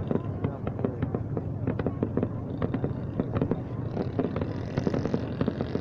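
Fireworks display going off: a dense, continuous crackle of many rapid bangs and pops.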